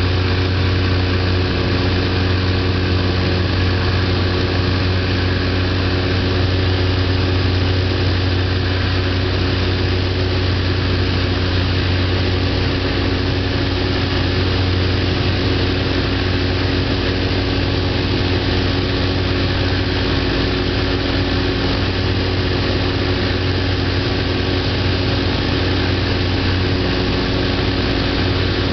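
Piper PA-44 Seminole's four-cylinder Lycoming engines and propellers droning steadily in the cockpit: a strong, even low hum with steady overtones over a dense rushing noise. One engine is throttled back for a simulated engine failure, so the other carries the approach.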